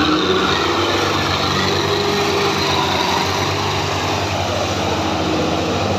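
Belarus tractor's diesel engine running steadily under a heavy load, pulling a loaded sugarcane trolley, with an even chugging firing rhythm.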